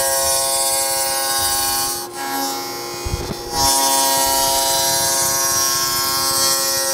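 Table saw cutting a 3/4-inch-wide, 3/8-inch-deep dado across a plywood panel: a steady motor whine with the hiss of the cut. The sound drops for about a second and a half around two seconds in, with a low thump, then comes back at full strength.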